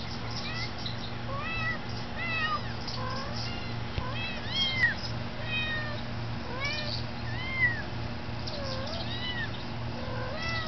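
A kitten stuck up a tree mewing over and over, short high cries that rise and fall, one or two a second, over a steady low hum.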